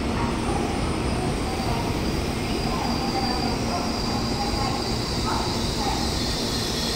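N700S Shinkansen train running slowly into the platform and braking to a stop, a steady rolling rumble. A thin high squeal joins about halfway through.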